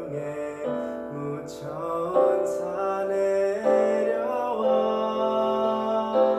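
Christmas hymn medley: voices singing over a piano backing track.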